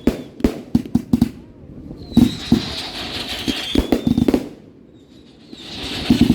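Fireworks going off: a quick run of sharp bangs, then a rising hiss with a high whistle and more bangs, a short lull, and another swelling hiss near the end.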